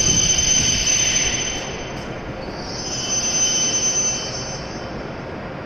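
Hokuriku Shinkansen W7 series train decelerating to a stop, its brakes giving a high-pitched squeal over the rumble of the rolling train. The squeal fades about a second and a half in, returns briefly around three seconds, and then dies away as the train comes to rest.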